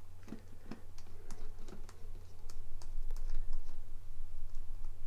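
Light, irregular clicks and taps of a small precision screwdriver turning a tiny screw into a watch's stainless steel case back, over a steady low hum.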